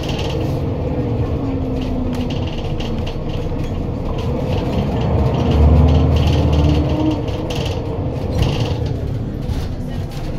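Scania L94UB Lahti Scala city bus under way: engine running, with the whine of its ZF Ecomat 5HP502C automatic gearbox gliding up and down in pitch, among rattles and creaks of the body.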